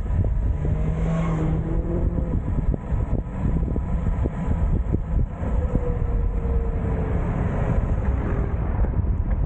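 Wind rushing and buffeting over a bike-mounted camera's microphone on a downhill ride, with the hum of the moving bike underneath. A faint whine comes and goes about a second in, and another slowly falls in pitch in the second half.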